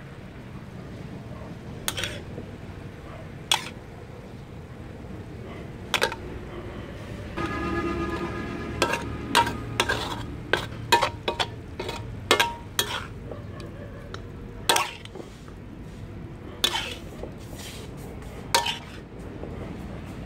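Metal spatula scraping and clanking against a large metal wok as stir-fried cabbage and pork is turned and scooped out, over a light sizzle. The clanks come irregularly and crowd together a little before the middle.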